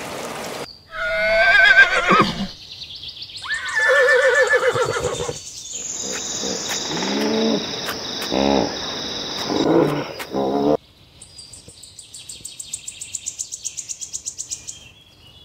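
A string of different animal calls spliced one after another. First a wavering, neigh-like call, then a second pitched call, then deeper repeated calls under steady high bird chirping, which cut off abruptly about 11 seconds in. Last comes a fast, even, high-pitched pulsing like an insect's.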